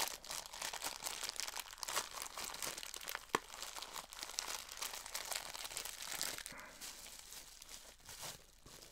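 Plastic bag crinkling continuously as it is handled and opened to free a vinyl figure, a dense run of small crackles.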